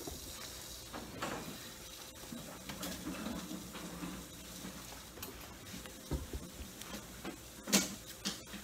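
Low room noise with faint handling sounds and a few light knocks. The sharpest, loudest knock comes a little before the end.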